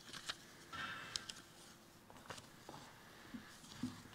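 Faint footsteps on a stage floor, a few scattered soft knocks and light rustling at an irregular pace.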